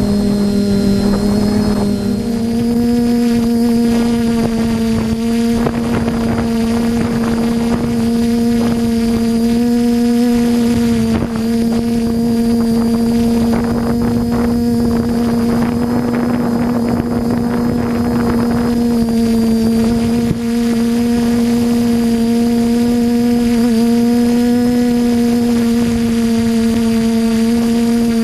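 Quadcopter electric motors and propellers whining steadily in flight, the pitch stepping up slightly about two seconds in. A rushing noise swells and fades in the middle.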